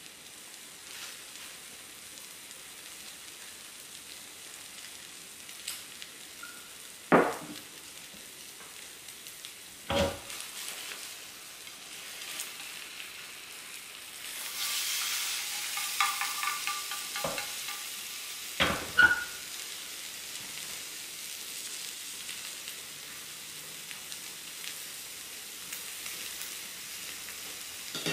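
Egg for dashimaki tamago sizzling in a square tamagoyaki pan over a gas flame. The sizzling grows louder for a couple of seconds about halfway through. A few sharp clicks come from the chopsticks and pan as the rolled egg is worked.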